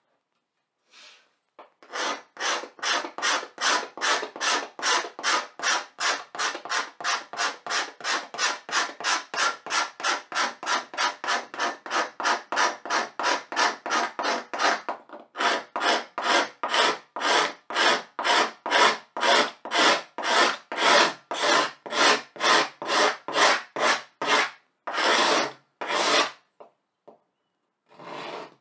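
A pointed hand tool scratching back and forth over a black board, carving lines into its surface in quick, even scraping strokes of about three or four a second. The strokes then slow to about two a second and end in two longer scrapes, followed by a short pause.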